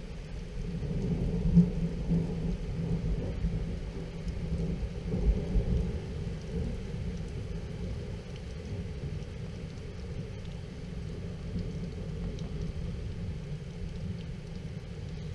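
Thunder from an intracloud lightning flash about 2 km away: a low rolling rumble that builds about half a second in, swells twice in the first six seconds and slowly dies away. Steady rain falls throughout.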